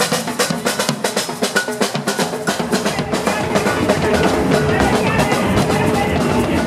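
Samba bateria drumming on the march: snare drums and bass drums playing a fast, driving rhythm. A little past halfway the crisp drum strokes give way to a denser, smoother wash of music.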